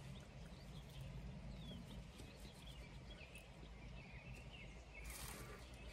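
Quiet outdoor ambience through an open car window: a low wind rumble with a few faint chirping bird calls, and a brief rush of noise about five seconds in.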